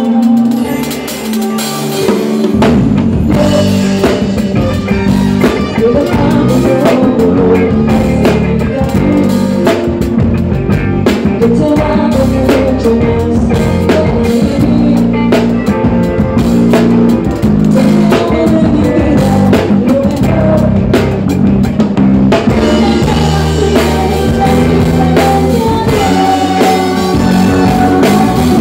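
Live music with a drum kit played close up, kick drum and cymbals prominent. The first two seconds or so are lighter with little bass, then the full kit and band come in and play on steadily.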